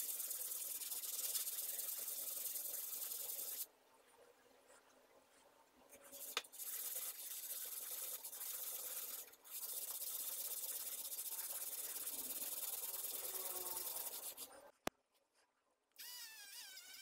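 A steel chisel blade being rubbed on sandpaper to sharpen it, a steady hiss in long passes that stops twice, about four seconds in and near the end, with a sharp click around each stop. Near the end a small handheld rotary tool starts with a wavering whine.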